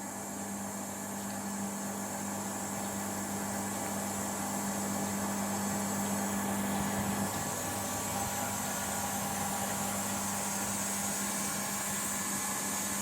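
Membrane water purification machine running: a steady pump and motor hum with a high hiss, one low tone in the hum dropping out about halfway through. The running sound of a system working normally at its operating pressure.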